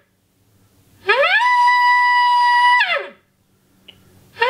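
Elk bugle call blown by hand: a loud, reedy whistle that rises, holds one high pitch for about a second and a half, then slides back down. The tail of one call fades out at the start, and another begins near the end.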